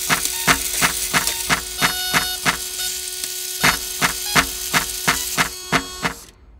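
Clockwork of a 1585 table ship automaton running: its gears and toothed wheels clack in an even rhythm of about three clicks a second over a steady hum. The clicking stops abruptly near the end.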